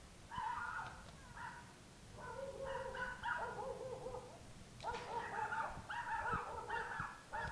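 A dog barking and whimpering in a series of short calls, with a denser run in the second half.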